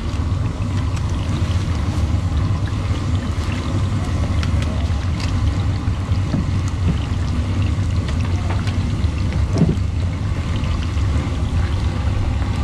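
Hot oil sizzling and crackling steadily in a large wok where meat patties and eggs are deep-frying, with many small pops. A steady low rumble runs underneath.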